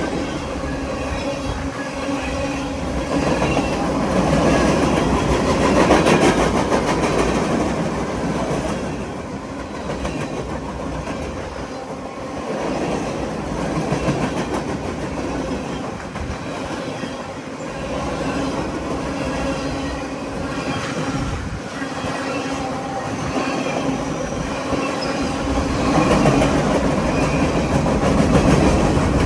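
Freight cars of a long BNSF manifest train rolling past at speed, steel wheels clattering over the rail joints with a continuous rumble. The sound swells louder twice, about five seconds in and again near the end.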